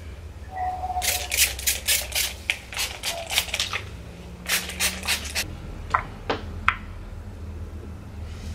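Trigger spray bottle spritzing water onto braided hair: a quick run of about seven sprays about a second in, then four more shortly after the middle. Three light clicks follow.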